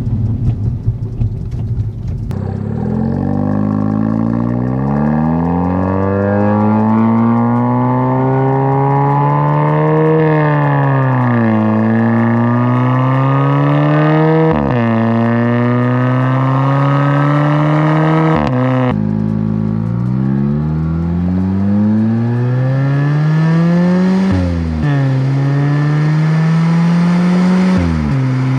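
Kia Forte GT's 1.6-litre turbocharged four-cylinder through an XForce catback exhaust with a Varex valved muffler, accelerating hard through the gears. The exhaust note climbs steadily in pitch, drops sharply at each upshift and climbs again, several times over. A rougher, noisier engine sound comes before the first pull.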